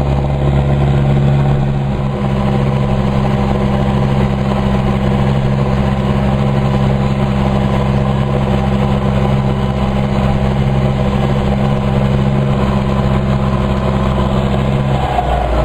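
Ursus 1014 tractor's turbocharged diesel engine pulling steadily under load while ploughing, a steady drone heard from inside the cab. The camera's microphone distorts the sound heavily. The low engine note drops away near the end.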